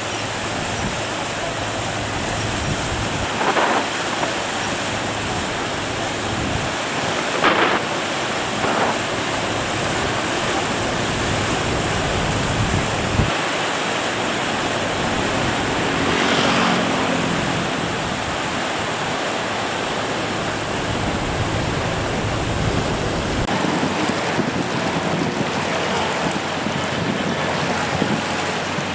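Steady rush of wind on the microphone and moving water, with a low steady hum of a boat engine underneath.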